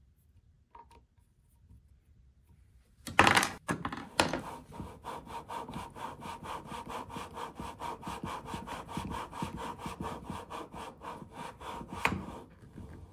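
Scope-ring lapping bar being worked back and forth through tightened ring halves coated with abrasive lapping compound: a gritty metal-on-metal rasping in rapid even strokes, about four a second. It starts about three seconds in and stops near the end.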